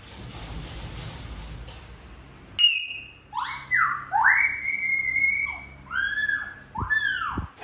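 Baby monkey calling: a run of high, pitched cries that rise and fall, one of them held for over a second, starting about two and a half seconds in. Before the calls there is a soft rustling.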